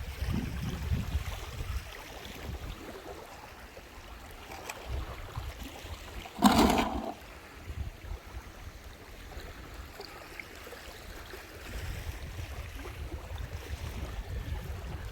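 Wind buffeting the microphone over the wash of lake water on the shore, with a brief loud burst of noise about six and a half seconds in.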